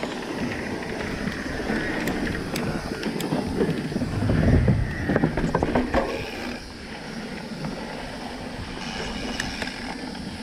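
Riding noise of a mountain bike on a dirt singletrack: a steady rush with rattles and knocks as the bike goes over rough ground, loudest and bumpiest about four to six seconds in.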